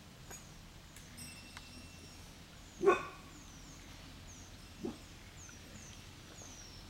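A dog barks twice: one loud single bark about three seconds in, then a quieter one about two seconds later.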